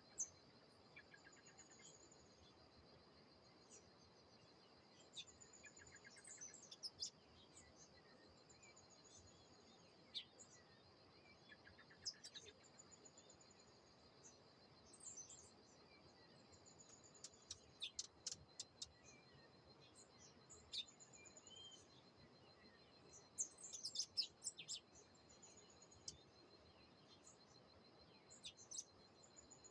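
Several songbirds chirping and singing in short high phrases, a few bursts of quick chirps a little past halfway and again about 24 seconds in, over a steady high insect drone, likely crickets or cicadas.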